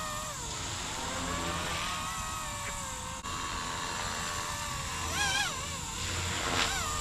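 Blade CP235 RC helicopter's electric motor and rotor whining in flight, the pitch wavering up and down as the pilot works the controls. The pitch rises in a brief surge about five seconds in and again just before the end.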